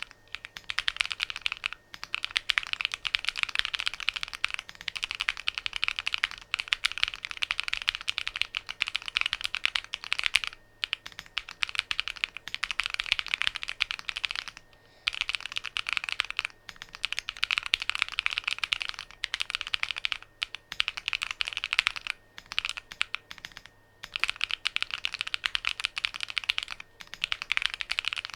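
Typing on a DIY Alice-layout mechanical keyboard: fast runs of key clicks broken by short pauses every few seconds.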